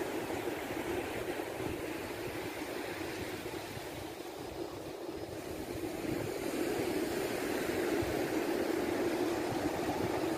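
Steady rushing noise of surf washing on a sandy beach, mixed with wind buffeting a phone microphone, easing slightly about four to five seconds in.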